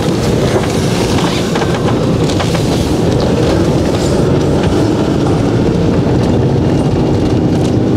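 Motorhome on the move, heard from inside the cab: a steady engine drone and road rumble, with scattered small clicks and rattles.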